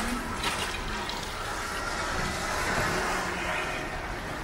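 Tyres hissing on a wet road as a vehicle passes, swelling to a peak about halfway through and then fading.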